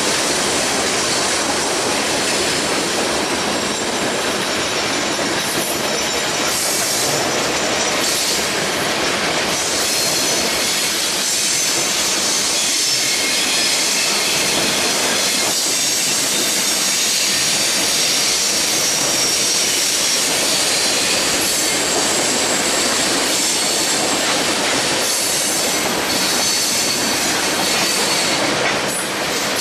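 Freight cars (tank cars and open-top cars) rolling past at speed: a steady noise of steel wheels on rail, with a thin high squeal from the wheels on the curve.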